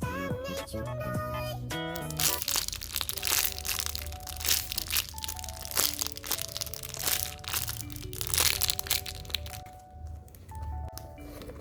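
Packaging crinkling and crackling as it is handled and wrapped, from about two seconds in, with frequent loud crackles. Soft background music plays throughout, a sung melody at the start.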